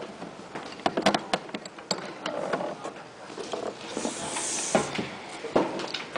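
Irregular knocks and clicks from a handmade sewing machine with a hollow paper-box body as it is handled and lifted to be turned over, with a brief scraping hiss about four seconds in.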